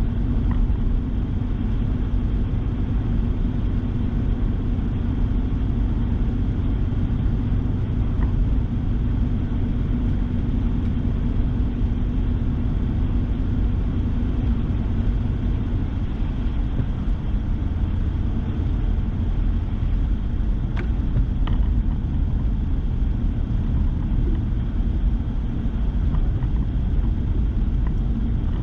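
Steady road rumble of a pickup truck driving on a slushy, snow-covered road, heard from inside the cab: engine and tyre noise, even throughout, with a few faint ticks about three quarters of the way through.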